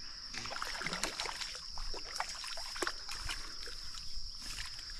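Light, irregular splashing and dripping of water around a freshly caught bass, over a steady high-pitched insect chorus.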